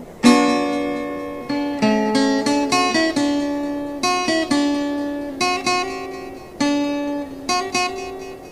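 Background music: a plucked acoustic guitar playing a slow melody of single notes and chords, each note ringing out and fading before the next.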